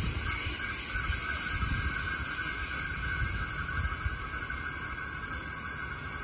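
Steady running noise of a Brisbane suburban electric train: an uneven low rumble under a constant hiss, with a faint steady tone on top.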